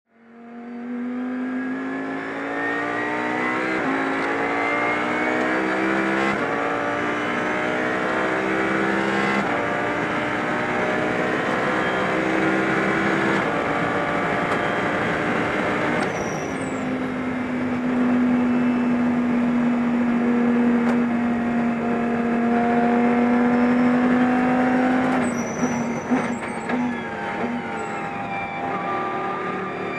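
Audi R8 LMS GT3 race car's V10 engine heard from inside the cockpit, revving up through the gears with a quick drop in pitch at each upshift every few seconds. It then pulls at fairly steady, slowly rising revs for several seconds before the engine note breaks up with a burst of pops and crackles near the end.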